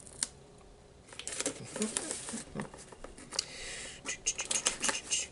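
Cardboard package being opened by hand: rustling, tapping and scraping of cardboard, with a short tearing hiss about three and a half seconds in and a quick run of clicks near the end.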